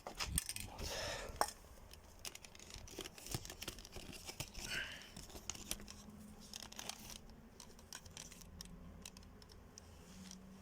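Hands handling tools and parts: scattered small clicks, taps and rustling, busiest in the first couple of seconds. A faint low hum comes in about halfway.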